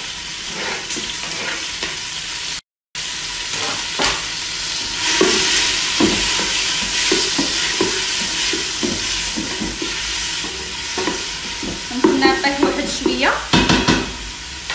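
Chopped onion and tomato sizzling in hot oil in a stainless steel pot, with a wooden spoon stirring and scraping against the pot in repeated short strokes that grow louder near the end. The sound cuts out briefly about three seconds in.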